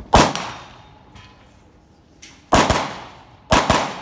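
Carbine gunshots: a single shot, a pause of about two and a half seconds, another shot, then a quick pair near the end, each trailing off in echo.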